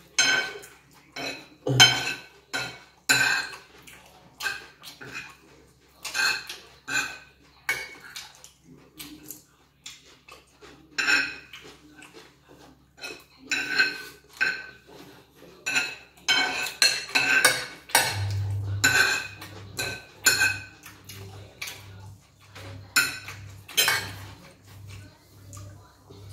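Cutlery scraping and clinking against ceramic plates as two people eat rice, in short irregular strokes every second or so.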